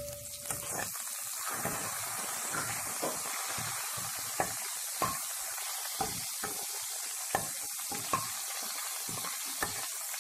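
Crushed garlic, curry leaves and cumin sizzling steadily in hot oil in a kadhai, a spatula stirring them and clicking against the pan about once or twice a second.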